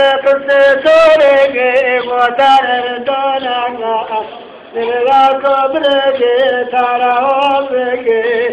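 A man singing a Turkish folk song (türkü) unaccompanied, holding long notes with wavering ornaments, with a pause for breath about halfway through.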